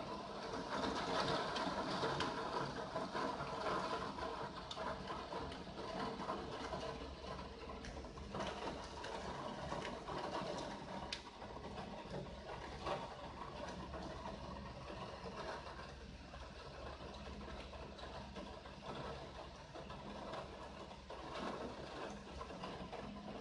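Rain pattering against a window pane and sill, a dense patter of many small drops, a little heavier in the first few seconds.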